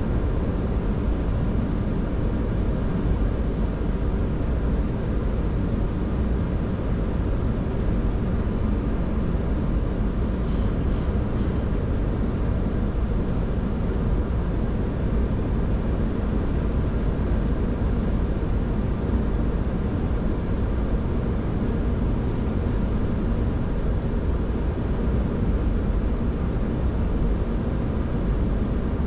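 Boeing 737-800 flight-deck noise on final approach: a steady rushing of airflow and engines that holds level throughout. Three faint short ticks sound about eleven seconds in.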